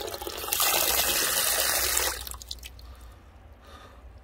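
Live fish thrashing in a plastic bucket of shallow water, a burst of splashing lasting about a second and a half before it dies down.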